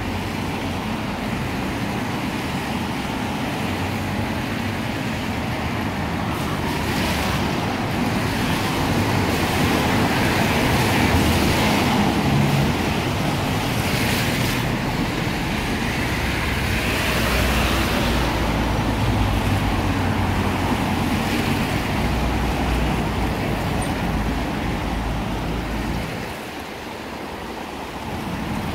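Wet-road traffic in the rain: cars swish past one after another, each swelling and fading, over a steady hiss of rain. It drops quieter for a moment near the end.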